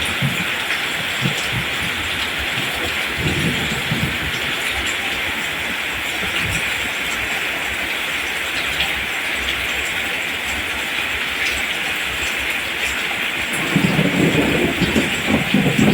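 Steady rain falling on rice plants, an even hiss. A low rumble swells briefly about three seconds in and builds again near the end.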